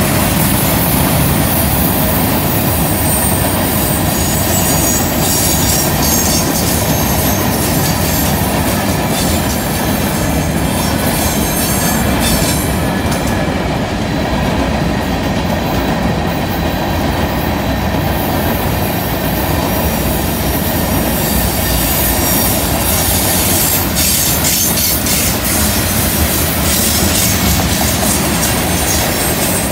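Freight train cars (hoppers, gondolas and tank cars) rolling past steadily on a curve: continuous wheel-and-rail rumble with clicking wheels and high-pitched wheel squeal from the curve, the squeal dropping away for a few seconds midway.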